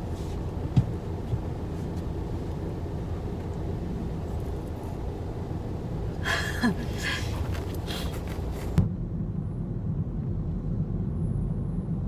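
Steady low rumble inside a car cabin, with a sharp click about a second in and a brief louder noise about six seconds in. Just before nine seconds the sound changes abruptly to a duller rumble as the car drives.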